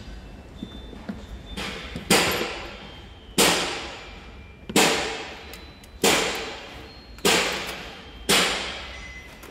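Hammer blows on metal during a water pump replacement: a light tap, then six hard, evenly paced strikes about a second and a quarter apart, each one ringing out.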